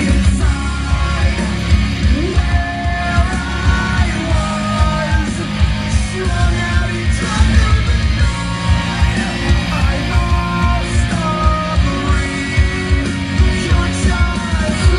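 Loud rock music with a steady heavy beat and a singing voice.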